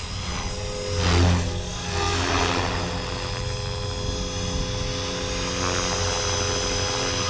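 Blade Fusion 360 electric RC helicopter in flight: a steady motor and drivetrain whine under the rotor blades' whoosh, which swells loudest about a second in and again around two seconds.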